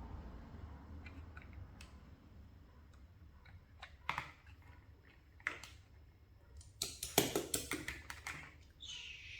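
Small hard pieces being handled, likely toy or puzzle pieces: scattered light clicks and taps, then a quick run of clicks about seven seconds in. A short squeak comes near the end.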